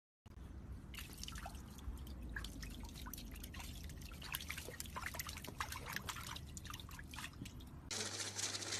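Small splashes and drips of water from a small dog paddling its legs in a shallow pool, many quick separate splashes. Near the end they give way abruptly to a steady hiss with a low hum.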